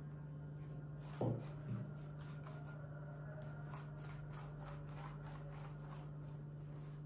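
Pastry brush spreading melted butter over a sheet of soft yeast dough: a run of faint, quick brushing strokes, with two brief louder low sounds a little over a second in, over a steady low hum.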